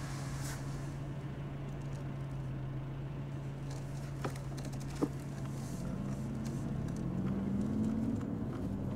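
Taxi's engine and road noise heard from inside the cabin, a steady low drone. Two short clicks come about four and five seconds in, and a higher engine note climbs slowly through the second half.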